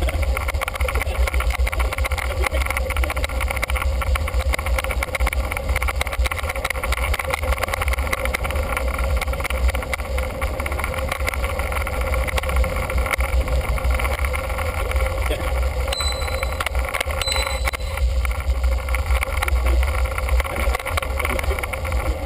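Steady wind and riding noise on a bicycle-mounted camera's microphone, sped up fourfold, giving a constant low rumble. Two short high beeps come about two-thirds of the way through.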